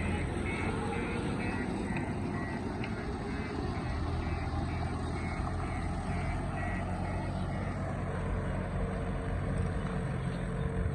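Diesel engine of a JCB 3DX backhoe loader running steadily, with a reversing alarm beeping rapidly until about eight seconds in.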